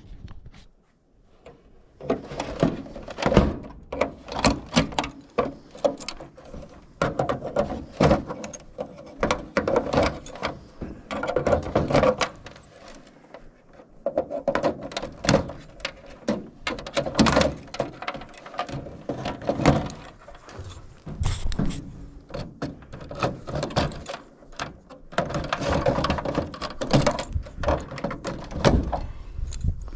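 Wire cutters snipping through the wiring on a clothes dryer's control panel, with irregular clicks, knocks and rattles as the wires and the sheet-metal panel are handled.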